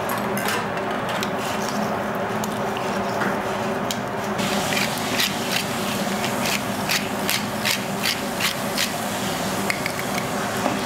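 Pepper mill grinding black pepper over cut pork, a series of short crunchy grinding strokes about three a second from about halfway in until near the end, over a steady low kitchen hum.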